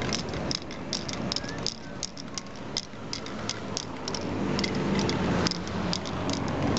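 Aerosol spray-paint can sprayed in many quick, short spurts, each a brief hiss, in an uneven rhythm, over a steady background of street traffic.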